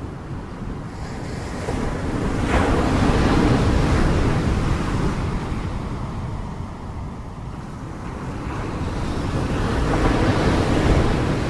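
Sea waves surging and breaking, in two swells: one builds about two seconds in, the other near the end. Wind buffets the microphone with a low rumble underneath.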